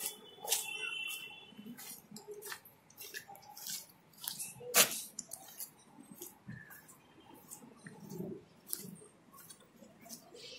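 Footsteps crunching on a gritty concrete floor, with irregular clicks and rustles; one sharper click about five seconds in.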